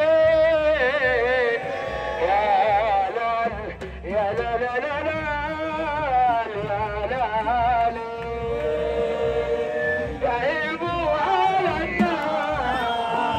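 Crowd of fans singing a melodic chant together, with a drum beat underneath. About two-thirds of the way through they hold one long note.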